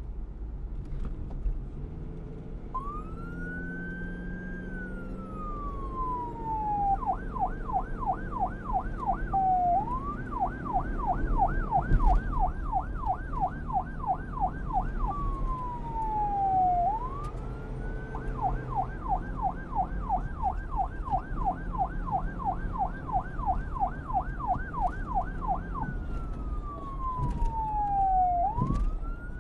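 Police siren starting about three seconds in and switching between a slow wail, rising and falling over a few seconds, and a fast yelp of about four to five sweeps a second, several times over. A low rumble runs beneath it.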